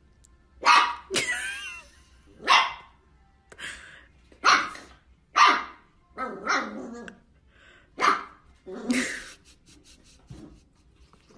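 A puppy barking at its own reflection in a mirror: about nine short barks, roughly one a second, with a few faint taps near the end.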